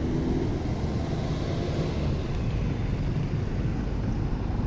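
Steady rushing noise of a swollen, flooded river, mixed with wind rumbling on the microphone.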